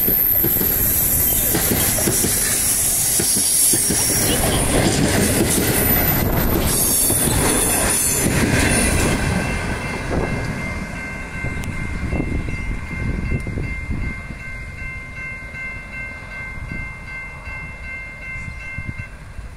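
Carriages of the Overland passenger train running past close by, wheels on the rails clattering, with a high wheel squeal at first. After about nine seconds the train noise drops away as the last carriage clears, and level-crossing bells ring on steadily until they stop shortly before the end.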